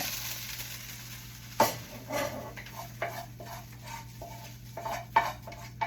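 Vegetables frying in a pan with a faint sizzle, and a spatula scraping and knocking against the pan now and then as the filling is stirred.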